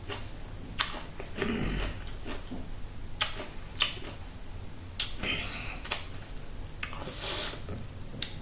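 Close-up eating sounds of raw cucumber with honey: a series of sharp crunches about a second apart, mixed with chewing and wet mouth noises, and a hissing slurp near the end.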